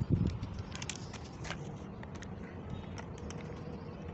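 Plastic parts of a pressure washer's snow-foam attachment being handled and fitted to the spray lance: a few knocks near the start, then scattered light clicks.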